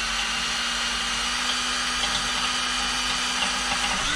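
Cordless power drill running steadily at a constant pitch, boring a pilot hole through a metal motorcycle wheel rim for a rim lock.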